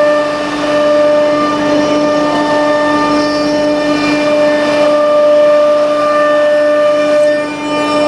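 CNC router spindle running at speed while machining MDF: a steady, loud whine with a hiss of cutting noise beneath it, briefly dipping near the end.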